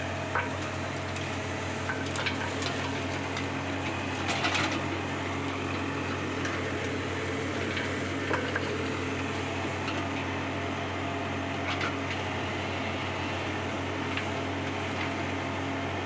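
Hydraulic excavator's diesel engine running at a steady hum, with a few sharp knocks and clanks as the bucket digs into the trench.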